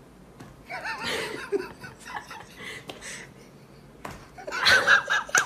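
A person laughing in short bursts, once about a second in and again, louder, near the end.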